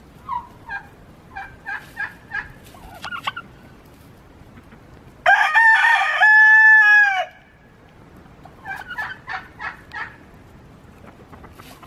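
A rooster crows once, loudly, for about two seconds, a little over five seconds in. Short clucking calls from the hens come before and after it.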